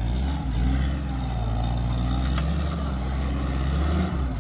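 Vintage jeep engine running at low revs with a steady low rumble while climbing a dirt track.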